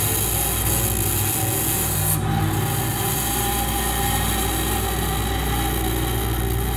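Double bass bowed with heavy pressure, giving a continuous scraping, rasping drone with many sustained overtones over a deep low hum; the high hiss briefly drops away about two seconds in.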